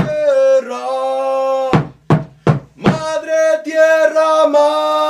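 A man chanting in a sustained, wavering voice, accompanied by a large drum struck with a beater. Near the middle the voice breaks off for four quick drum strokes, then the chant resumes.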